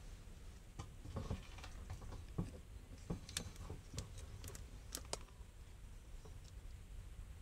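Faint, irregular light clicks and taps, about a dozen, mostly in the middle of the stretch, over a low steady rumble.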